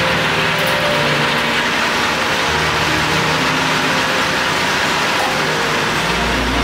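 A machine tool running steadily with a dense, even hiss, as when turning metal, under background music of shifting low notes.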